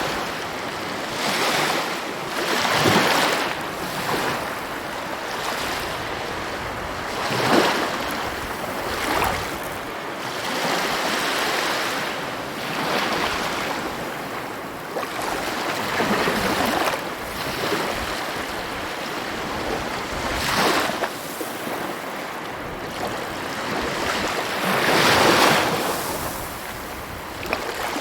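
Sea waves breaking and washing up on a shore, a continuous surf hiss that swells with each breaking wave every few seconds.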